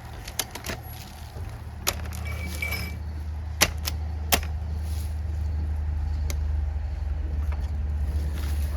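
Solo 681 two-stroke chainsaw idling with a steady low hum, with a few sharp clicks and knocks of handling over it.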